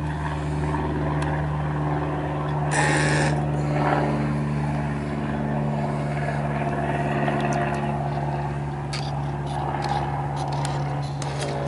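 Small electric ballast pump in an RC submarine's watertight cylinder running with a steady, constant-pitched hum as it forces water into the ballast tank. A brief hiss comes about three seconds in.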